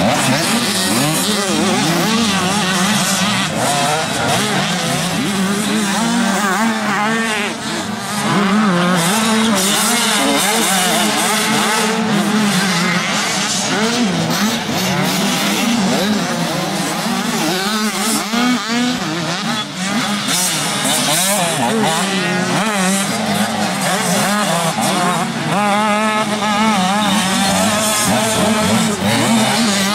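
Several 85cc two-stroke motocross bikes racing together, their engines revving up and down as the riders shift and corner, with many engine notes overlapping.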